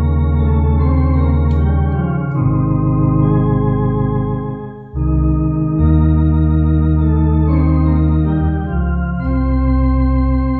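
Two-manual electronic organ playing a slow hymn in sustained chords over deep held bass notes, the middle notes wavering with a light vibrato. The phrase breaks off briefly about five seconds in before the next chord.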